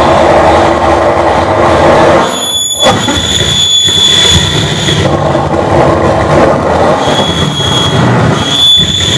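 Live harsh noise music from an electronic noise setup: a loud, dense wall of distorted noise with a shrill steady whine riding on top. It cuts out briefly about two and a half seconds in and again near the end.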